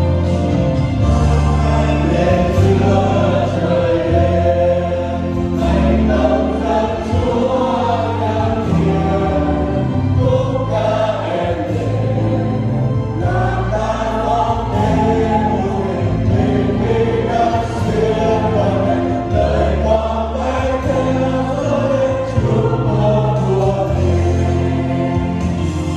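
Choir singing gospel-style Christian music with instrumental accompaniment, over long held bass notes.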